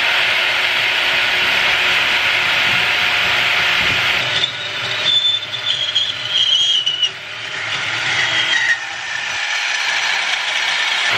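Power saw cutting through metal exhaust tubing: a steady, loud grinding noise with a high squeal that comes and goes midway as the blade bites.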